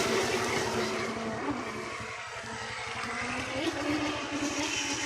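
Pro Boat Recoil 26 RC boat's brushless electric motor whining as the boat runs across the water. Its pitch wavers up and down with the throttle, over a steady hiss of spray.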